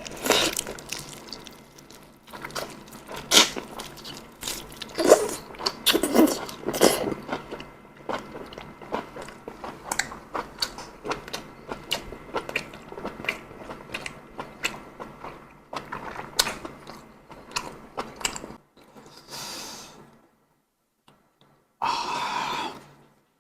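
Close-miked eating of boiled chicken: biting and chewing with many small, irregular crunching clicks. The chewing stops about 20 seconds in, and another short noisy sound follows near the end.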